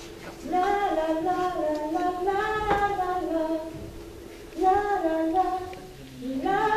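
A woman singing a melody alone in three phrases, the notes stepping up and down, with short breaks between phrases about four and six seconds in.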